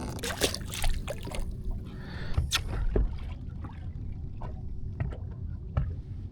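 Scattered small knocks and clicks of gear being handled in a fishing boat, over a low rumble of water and wind.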